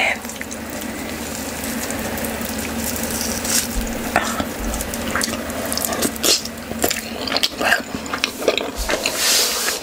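Wet, sticky squishing and small irregular clicks of fingers kneading and pinching soft swallow dough and working it through stew. Near the end, close-up chewing and mouth sounds take over.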